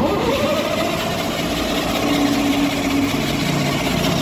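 Truck's starter motor cranking the BS3 diesel engine. It cuts in suddenly with a whine that dips and then settles to a steady pitch, with the engine not yet firing: it has drawn air into the fuel system after running out of diesel.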